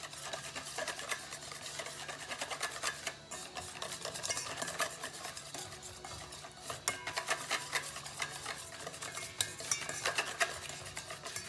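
Wire whisk beating flour into a runny egg batter in a stainless steel bowl: fast, steady clicking and scraping of the wires against the metal.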